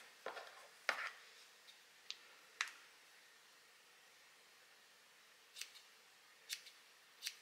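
Small fly-tying scissors snipping: about six short, sharp clicks spread out over several seconds, with quiet between them.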